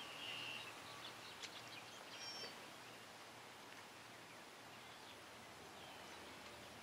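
Quiet open-air stillness with a few short whistled bird calls, one right at the start and another about two seconds in, over a faint steady hiss.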